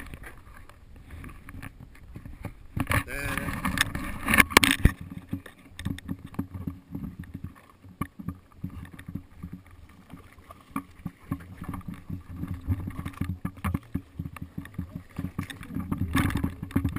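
Sea water slapping and sloshing against the side of a boat, with irregular knocks and rubbing from a pole-mounted camera being handled. A louder stretch with a wavering cry comes about three to five seconds in.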